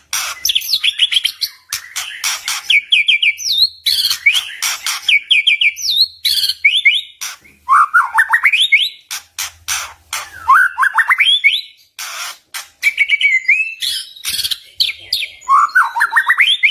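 White-rumped shama (murai batu) singing a fast, varied song. Runs of short whistled notes step up in pitch, broken by sharp clicking notes.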